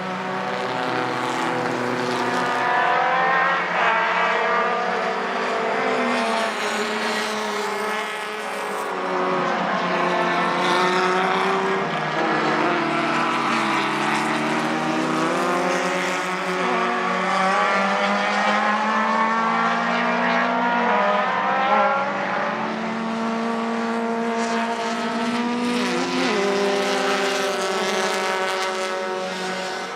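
Several racing cars' engines at full throttle, their pitch climbing and dropping as they shift through the gears, with more than one car heard at once.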